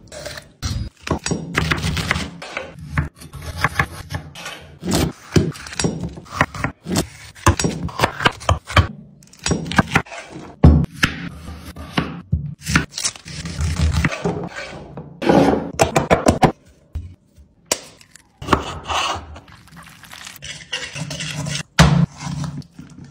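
Chef's knife cutting raw chicken and potatoes on a bamboo cutting board: irregular thunks of the blade striking the wood, with scraping and slicing strokes between them. Near the end, hands rub and squish marinade into the chicken in a metal pan.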